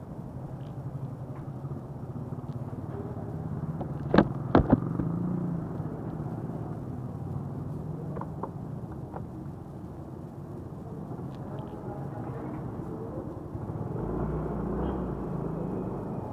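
Steady rumble of motor-vehicle traffic, broken by three sharp knocks about four seconds in. The rumble grows louder near the end.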